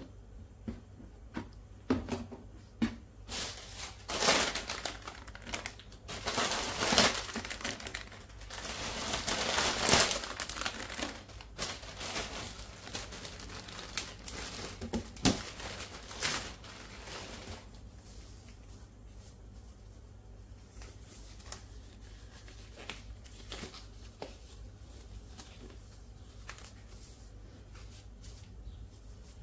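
Clear plastic zip-lock bag crinkling and rustling as it is handled, with a few light plastic knocks; busiest in the first half, then quieter.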